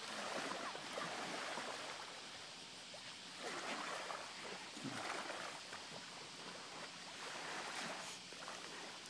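Faint splashing and sloshing of shallow seawater as a dog is held and moved about in it, over the low wash of small waves at the shore.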